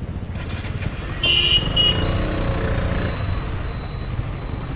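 A KTM Duke's single-cylinder engine running at low speed, with a vehicle horn honking twice in quick short blasts about a second in.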